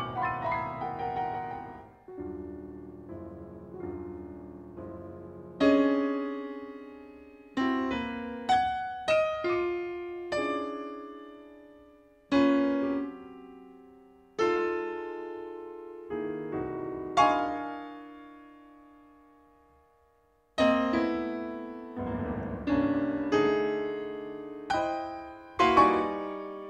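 Solo piano playing sparse modernist music: loud chords and single notes struck and left to ring and fade, some in quick groups, with short gaps between them and one near-silent pause shortly before a loud chord about three quarters of the way through.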